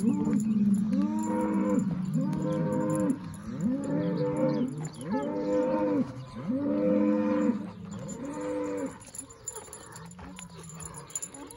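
Angus cow mooing over and over in a string of about eight short calls, roughly one a second, each rising and then falling in pitch, stopping about nine seconds in.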